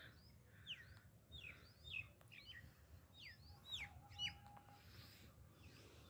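Small birds chirping faintly: a string of short calls, each sliding quickly downward in pitch, most of them in the first four and a half seconds.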